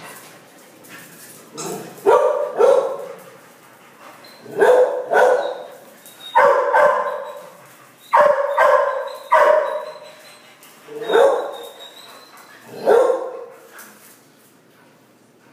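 Dogs barking in play while wrestling, about a dozen sharp barks that come singly or in quick pairs every second or two.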